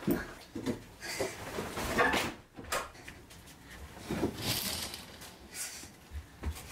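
Irregular knocks and rustling of someone moving about and handling things in a small room, with a longer rustle about four seconds in.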